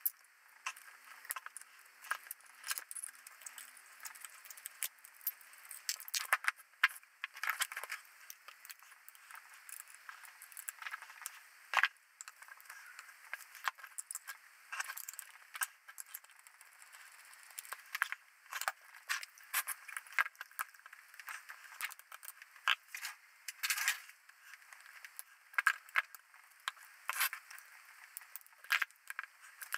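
A small spanner and hex key working the bolts on the metal housing of an aircraft fluidic transducer: irregular metallic clicks, taps and scrapes as the tools seat on the bolts and turn.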